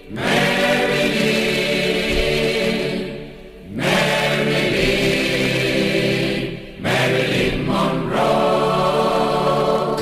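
Choir singing held chords in long phrases, with a short break between phrases about every three seconds.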